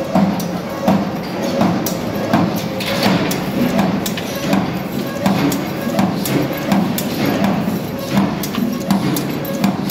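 45-ton H-type power press stamping continuously off a servo feeder, a sharp knock at each stroke repeating about every two-thirds of a second over the steady hum of the running machinery.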